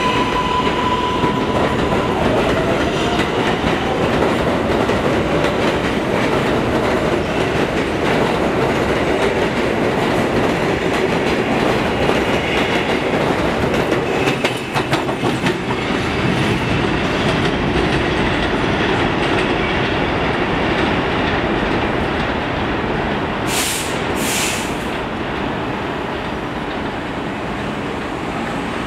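R143 subway train departing on elevated track. A high electric whine from its propulsion sounds for the first couple of seconds, then comes the steady rumble and wheel clatter of the cars running past. Near the end there are two short hisses, and the sound eases slightly as the train moves off.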